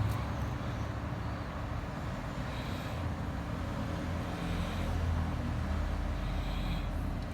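Steady low rumble of background noise with a faint hiss above it; no pops or clicks stand out.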